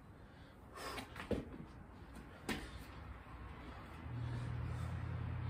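Thumps and scuffs of a person doing a burpee on a concrete patio as hands and feet land, with sharp knocks about a second and a quarter in and again at two and a half seconds. From about four seconds in a steady low hum sets in.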